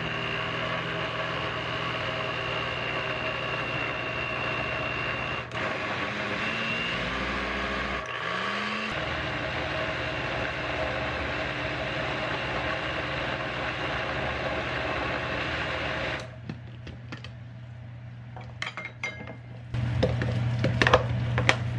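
Countertop blender running steadily while puréeing thick chickpea paste for hummus, then switching off about sixteen seconds in. Near the end there are scattered knocks and scrapes of a spatula working the thick paste in the plastic jar.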